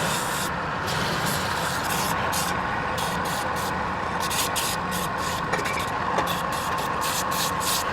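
Wood lathe running steadily, with a hiss that keeps cutting in and out as the spinning wood is worked.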